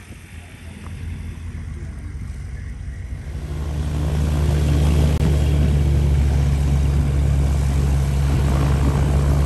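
Magni Orion 24 gyroplane's engine running with its pusher propeller turning: a steady low drone that grows much louder about four seconds in, then holds even.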